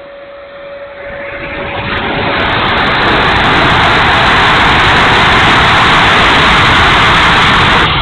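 Onboard sound of a 70 mm electric ducted-fan RC jet in flight: the fan and rushing air swell to a loud, steady rush about two seconds in as the jet dives, then fall off sharply near the end. A thin steady whine runs beneath.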